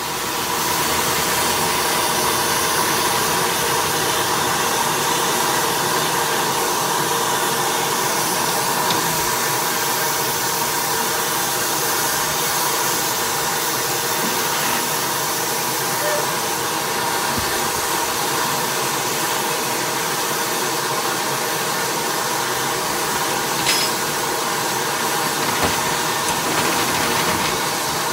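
Steam hissing steadily from the standing WD Austerity 0-6-0 saddle tank locomotive 75008 'Swiftsure', one loud, even hiss that never lets up.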